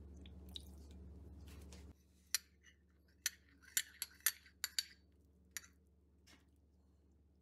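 A quick run of sharp kitchen clicks and clinks, about eight within three seconds, from handling sauce bottles while soy sauce and oyster sauce are poured over raw chicken legs on a ceramic plate.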